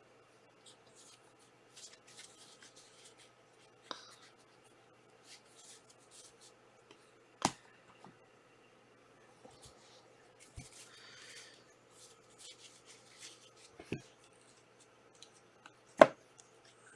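Trading cards being handled and sorted: soft sliding and rubbing of cards, broken by a few sharp taps of cards set down, the loudest near the end.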